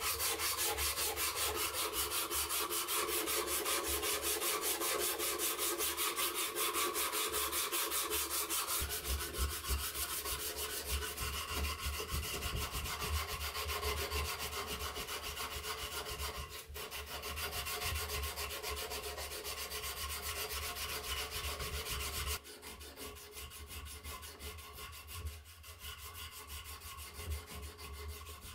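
Strip of sandpaper pulled rapidly back and forth around a wooden machete handle, shoe-shine style, making a steady rhythmic rasping of abrasive on wood. It is quieter for the last several seconds.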